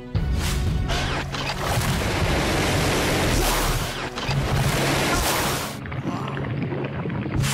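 Cartoon action soundtrack: loud music layered with dense rushing sound effects and booms, the high hiss dropping away for about a second and a half near the end.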